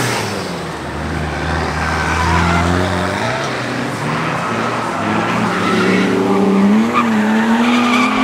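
A drift car sliding on track: its engine revs up and down while the tyres squeal and skid.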